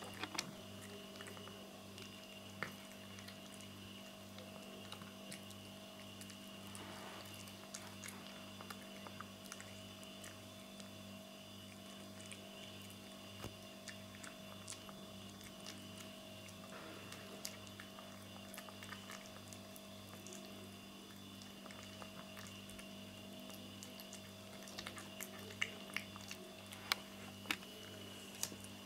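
Domestic cat eating chunks of food from a plate: faint wet chewing and smacking clicks over a steady low hum, with a run of louder clicks near the end.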